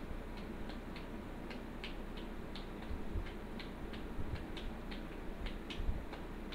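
Light, sharp clicks at uneven spacing, about three or four a second, over a steady low hum.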